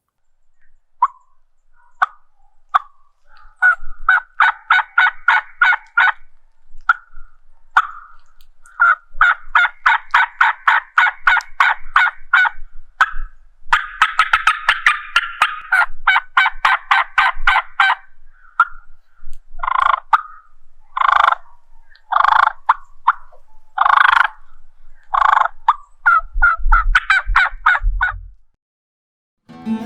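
Two-reed combo-cut diaphragm turkey mouth call (heavy blue latex over lighter white latex) blown to imitate a hen turkey: several runs of quick yelping notes, then a string of separate, louder single notes, and a last run near the end.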